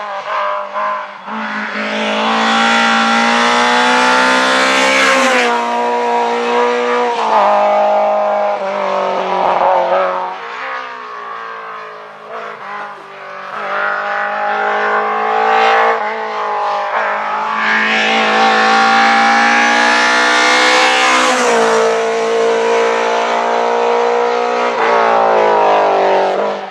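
Rally car engines at full throttle, the pitch climbing and then dropping sharply at each gear change as the cars pass one after another. Two passes are loudest: one a couple of seconds in and one about two-thirds of the way through.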